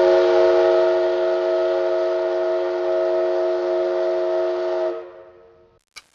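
Steam whistle sounding a steady chord of several tones for about five seconds, then fading away.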